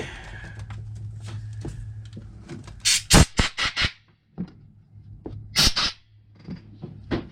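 Cordless screw gun backing bolts out of a Stihl MS250 chainsaw: a cluster of short bursts about three seconds in and another about two seconds later, with small clicks of metal parts between.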